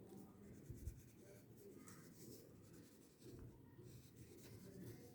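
Faint, repeated scratching of coloring strokes on paper as an area of the picture is filled in.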